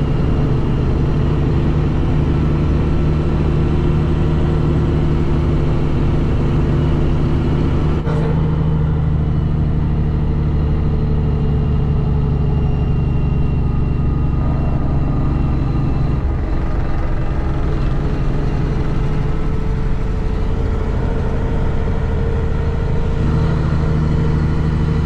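Semi-truck diesel engine running steadily under load while hauling a loaded trailer up a steep grade. Its note shifts about eight seconds in and again around sixteen seconds in.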